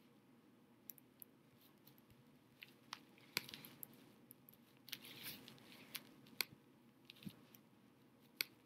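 Near silence with several faint, sharp clicks of a computer being operated, and a short soft rustle about five seconds in.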